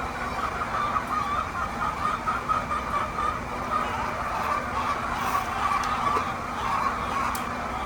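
A flock of chickens clucking and calling together, many overlapping short calls, over a steady low hum.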